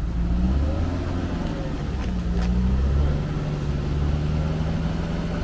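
Off-road 4x4 engine running and revving up and down, its pitch rising and falling, as a vehicle works to get through soft ground.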